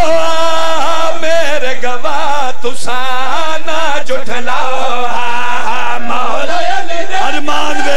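A zakir chanting a Punjabi mourning lament in long, wavering notes, loud and close to the microphone.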